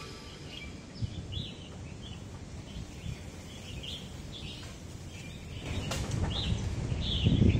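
A flock of red-whiskered bulbuls calling from the trees: many short chirpy calls in quick succession, several birds overlapping. A low rumble builds in the last couple of seconds, with a single click near the end.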